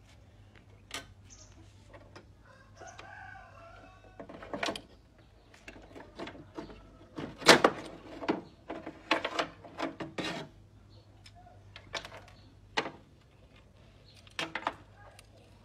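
Metal clanks and knocks as a car door's window regulator is worked loose and lifted out of the door panel, the loudest a sharp clank about halfway through. A rooster crows in the background a few seconds in.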